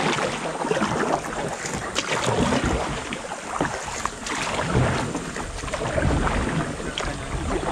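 Kayak paddle splashing and dipping in shallow creek water, with irregular knocks and splashes. Wind rumbles on the microphone.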